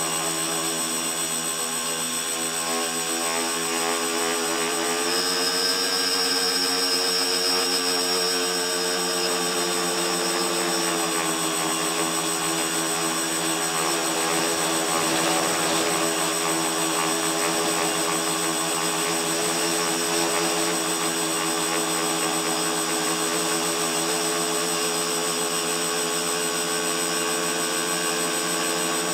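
Tricopter's three electric motors and propellers whining steadily in flight, heard close up from the camera on the aircraft. The pitch steps up about five seconds in and eases back down about eleven seconds in as the throttle changes.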